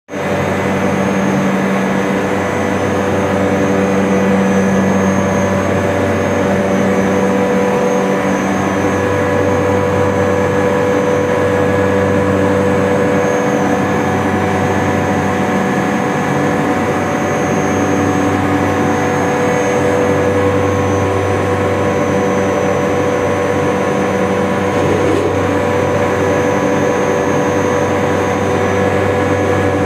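York YCIV air-cooled screw chiller running with its system 1 screw compressor on: a loud, steady machine drone with several steady pitched hums. Its lowest hum swells and fades every few seconds.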